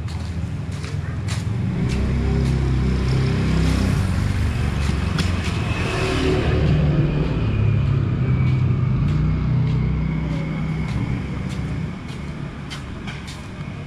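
A motor vehicle driving past on the street: its engine grows louder, passes closest about six seconds in with a rush of tyre and road noise, then fades away.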